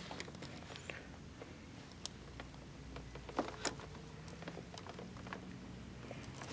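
Faint clicks and rustles of hands connecting the massage chair's air hose, with a few sharper plastic clicks about three and a half seconds in.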